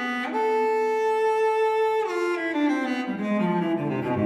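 Background music of bowed strings: one long held note, then a slow falling line, with deep low strings coming in near the end.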